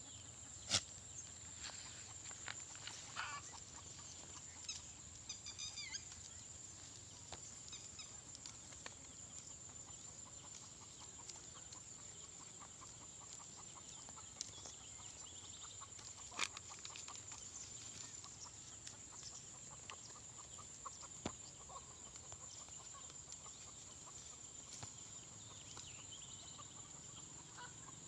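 Faint outdoor farmyard sound: a few short, high animal calls in the first several seconds, two sharp clicks, and a steady high-pitched hum underneath.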